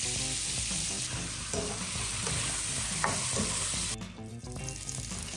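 Diced shiitake mushrooms, zucchini and tomato sizzling as they are stir-fried in a hot wok, over light background music. About four seconds in the sizzle cuts off abruptly and a fainter sizzle follows as gnocchi go into a pan of hot fat.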